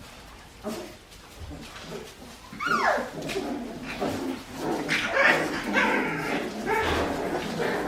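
Litter of young Australian Shepherd puppies whining and yipping: one falling whine about three seconds in, then a busy stretch of overlapping short yips and squeals.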